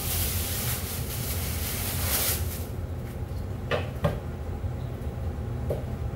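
Plastic bag rustling as a ball of noodle dough is pulled out. Then a kitchen knife cuts through the dough and knocks on a plastic cutting board, twice about four seconds in and once more lightly near the end. A steady low hum runs underneath.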